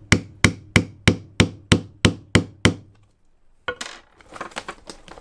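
Hammer whacking a setting pin to crimp a marine snap-fastener stud through boat-canvas vinyl: a steady run of about nine sharp strikes, roughly three a second, that stops about halfway through. A burst of rustling and clicks follows near the end.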